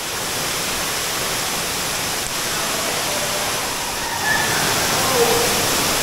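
Tukad Cepung waterfall pouring steadily, a dense, even rush of falling water.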